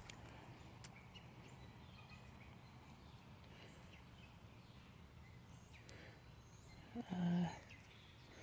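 Quiet outdoor ambience with faint bird chirps and a few small clicks; about seven seconds in, a short hummed vocal sound, like a thoughtful 'hmm'.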